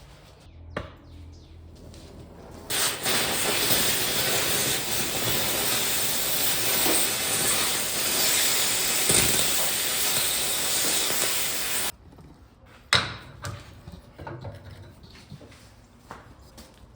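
A cutting torch hissing loudly as it burns out a worn axle U-joint. The hiss starts suddenly a few seconds in and cuts off about twelve seconds in, with a sharp metal knock before it and another just after.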